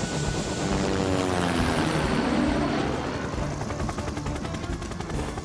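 Helicopter rotor chopping steadily as the helicopter flies overhead, with an engine tone that slides down in pitch as it passes about two seconds in.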